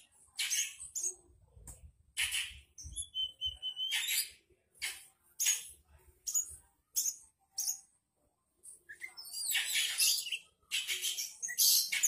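Oriental magpie-robin (kacer) singing: short, loud notes repeated about one or two a second. A held clear whistle comes about three seconds in, and a denser run of notes a little before the end.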